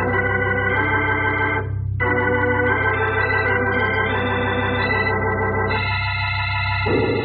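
Organ music bridge between scenes of a radio drama: held chords over a steady low note, changing about two seconds in and again near six seconds.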